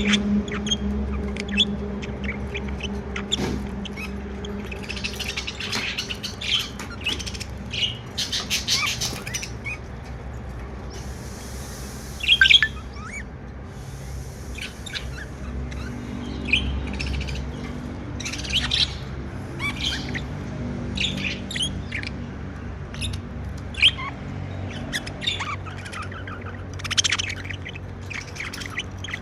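Pet budgerigars chirping in many short, scattered calls, the loudest about twelve seconds in, over a low steady hum.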